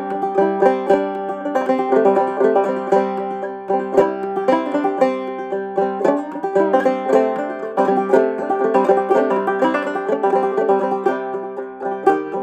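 Fretless banjo played clawhammer style: a quick, steady run of plucked notes over strings that keep ringing underneath. A few notes slide in pitch about six to seven seconds in, as a finger glides along the unfretted neck.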